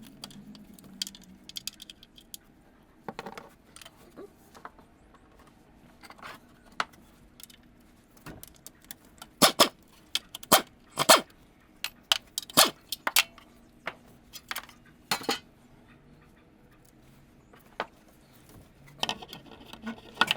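Irregular metallic clinks and knocks of hand tools and metal parts being handled during clutch and flywheel work, with a cluster of the loudest strikes about halfway through.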